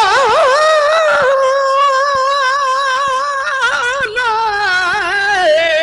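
A singer holds one long sung 'O' at the start of a verse line of a Sindhi devotional manqabat. The note wavers up and down in ornamented turns for about the first second, then holds steady and dips slightly in pitch near the end.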